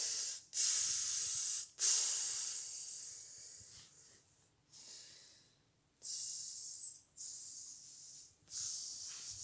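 A person sobbing in heavy breathy exhalations: three in quick succession, then a quiet pause, then three more.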